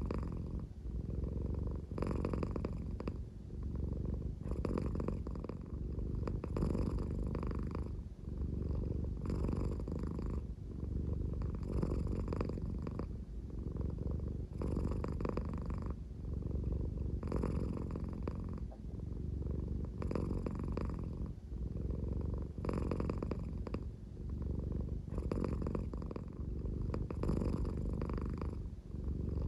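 American Shorthair cat purring slowly, a deep snore-like purr. It swells and eases with each breath, about every two and a half seconds.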